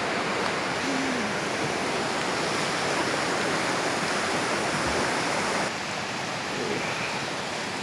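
River water rushing: a steady, dense rush, a little quieter from about six seconds in.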